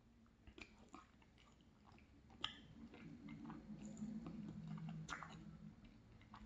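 Faint chewing and mouth sounds of eating ice cream topped with crumbled almond-raspberry tart, with a few light clicks, the sharpest about two and a half and five seconds in.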